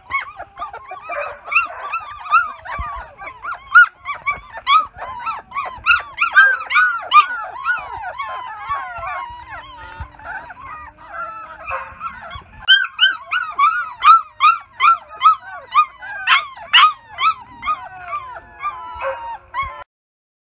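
A litter of young puppies whining and yelping: many short, high-pitched cries overlapping several times a second. It cuts off suddenly a little before the end.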